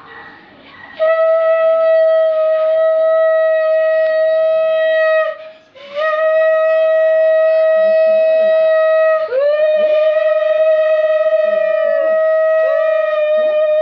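Conch shell (shankha) blown in long, steady, loud blasts: about four in a row with short breaks between, each blast sliding up slightly in pitch as it starts. It is sounded as an auspicious call during a Hindu blessing rite.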